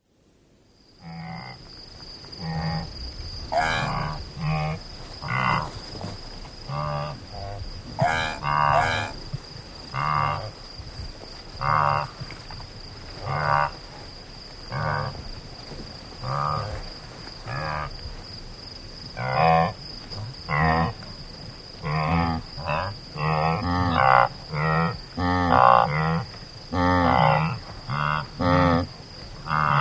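Antelope calling over and over in short pitched calls, roughly one every second or two and coming faster and louder near the end. A steady high-pitched tone runs underneath.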